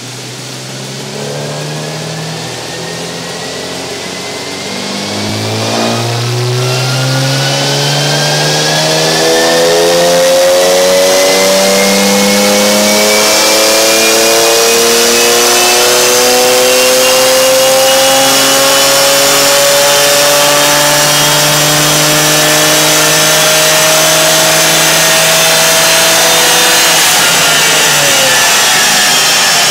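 Stock BMW 335's turbocharged straight-six making a full-throttle pull on a chassis dyno. The engine note rises slowly and steadily in pitch for about twenty seconds as the revs climb, then drops as the throttle is released near the end.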